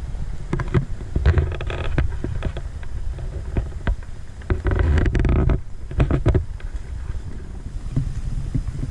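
Pickup truck rolling slowly on a gravel road: a low engine and tyre rumble with scattered clicks and knocks, louder for a moment about halfway through.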